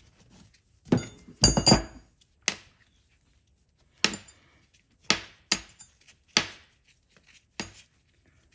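Metal carburetor parts and hand tools clinking and knocking on a workbench as a Kohler Command twin's carburetor is taken apart. About a dozen separate sharp taps, with a quick run of them about a second and a half in.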